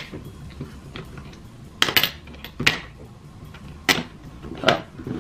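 Pellet-revolver magazines clacking against each other and the small wooden box as they are set in, about half a dozen separate sharp knocks.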